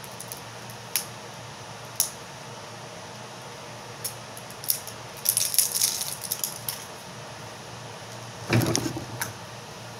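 Plastic wrap being peeled off a small toy egg by hand: a few scattered clicks, then a spell of crinkling about five seconds in, and a louder rustle near the end.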